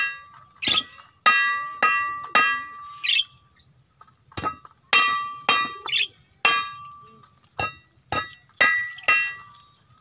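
Irregular sharp metallic clangs, about one or two a second with a short pause around three seconds in, each ringing out briefly before fading.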